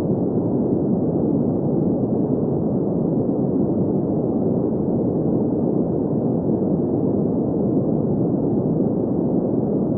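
Steady green noise: an even, unchanging hiss centred in the low-middle range, with almost nothing above about 2 kHz.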